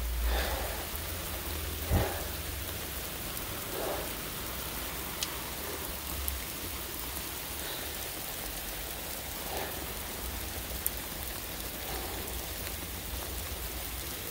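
Steady rain falling, with a few sharp taps of water drops landing close by, dripping off a rock overhang.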